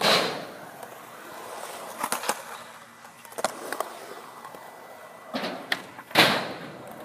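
Skateboard wheels rolling on concrete, broken by a few sharp clacks of the board. Near the end the tail pops for a trick, and the board lands hard about a second later.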